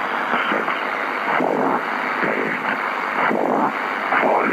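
Radio static: a dense crackling hiss, muffled above the middle range like an AM radio, swelling and dipping unevenly.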